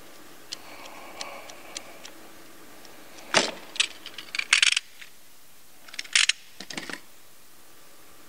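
A utility knife's long blade cutting through a rubber lower radiator hose. There are a few faint ticks, then from about three seconds in a run of sharp clicks and scrapes, loudest around four and a half and six seconds in.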